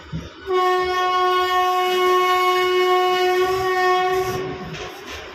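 A train horn sounding one long, steady blast of about four seconds, starting about half a second in and dying away near the end, over the running noise of the slowly moving train.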